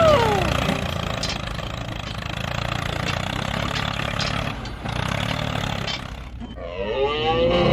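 Engine running with a steady low rumble. Near the end a wavering, warbling pitched sound comes in over it.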